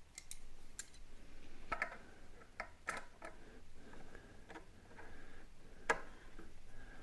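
Irregular metallic clicks and ticks as the end cap is fitted and screwed onto the XDR freehub body of a Wahoo Kickr v6 smart trainer. The clicks are faint and come one at a time, with a sharper one near the end.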